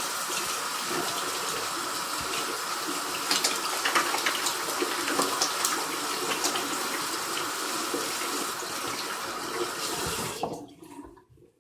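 Tap running into a sink while hands are washed under it, with some splashing; the water is shut off about ten seconds in.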